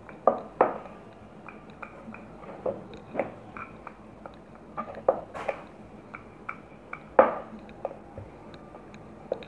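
Wooden rolling pin rolling out a stuffed dough ball on a wooden board, with irregular light knocks and clacks as the pin rocks and taps against the board. The loudest knocks come just after the start and again about seven seconds in.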